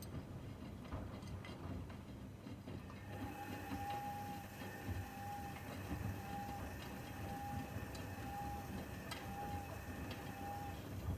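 Washing machine's signal beeping, about seven short tones roughly once a second starting about three seconds in, over a low machine hum and a faint high hiss.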